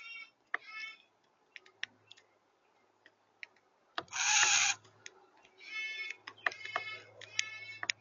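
Birds at a feeder giving short repeated calls in bunches, with scattered sharp taps and a loud rushing burst about four seconds in.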